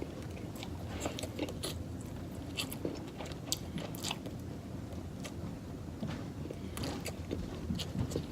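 A person chewing and biting food close to the microphone: wet mouth sounds with irregular crunchy clicks.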